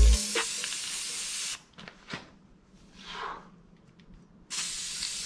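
Aerosol spray-paint can spraying in two bursts of hiss: one for about a second and a half at the start, and another from about four and a half seconds in, with a few faint clicks in the pause between.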